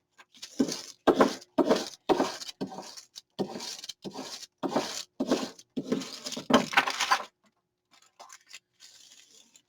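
Paper being rubbed with quick back-and-forth scraping strokes, about two a second, as glue is worked onto an envelope. The strokes stop about two-thirds of the way through, leaving only faint paper rustling.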